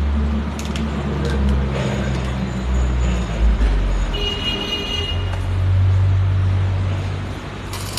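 Low, steady machine hum; its pitch shifts about halfway through, with a few faint clicks over it.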